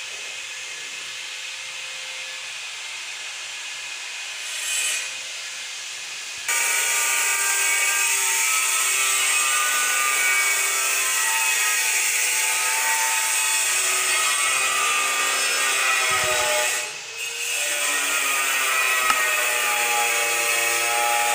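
A power tool running with a whine, starting abruptly about six seconds in after a steady hiss. Its pitch dips briefly about two-thirds of the way through and then climbs back.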